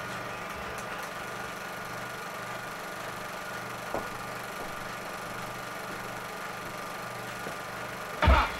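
A steady low mechanical hum with faint hiss, and a single click about four seconds in. A hip-hop beat cuts in loudly near the end.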